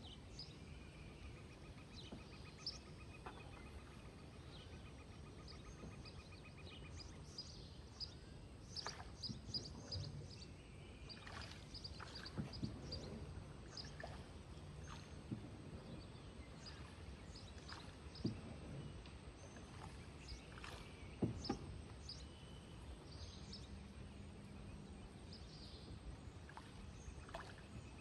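Faint tropical rainforest ambience: scattered short bird chirps and calls over a low steady rumble, with a rapid, evenly pulsed trill in the first few seconds.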